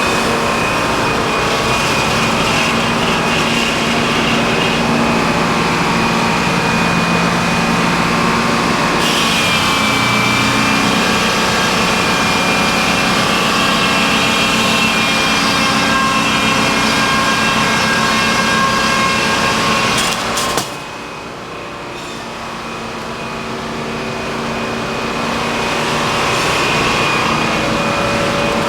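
Sawmill machinery running loudly and steadily, an engine-driven drone with a high whine. About two-thirds of the way through it drops off abruptly, then builds back up gradually over several seconds.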